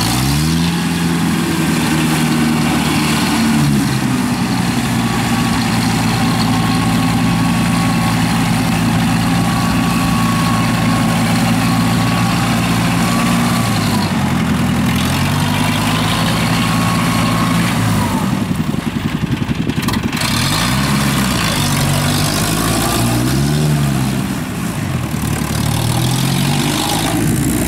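Engine of a small tracked field machine running hard as it churns through deep mud. Its pitch sags and recovers a few seconds in, near the middle, and several times in the last third, as the load on it changes.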